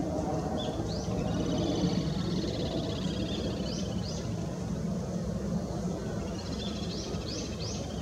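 Small birds calling: high, rapid trills and short upward-sweeping chirps, several times, over a steady low background rumble.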